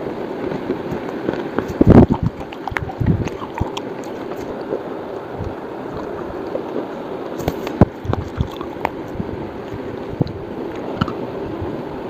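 Slate pencils being bitten and chewed: irregular sharp snaps and crunches, the loudest about two seconds in, over steady background noise.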